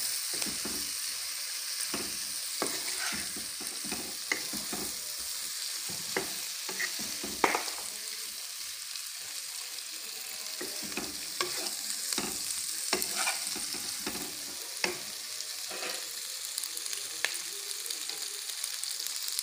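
Boiled macaroni, chicken and green capsicum sizzling in a hot pan as a spatula stir-fries them: a steady sizzle with irregular clicks and scrapes of the spatula against the pan, the sharpest about seven and a half seconds in.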